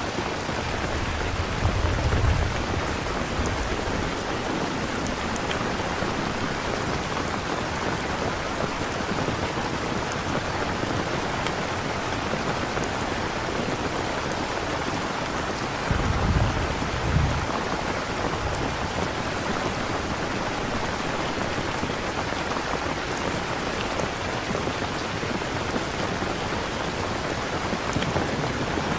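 Steady rain, with a low rumble of thunder about two seconds in and another about halfway through.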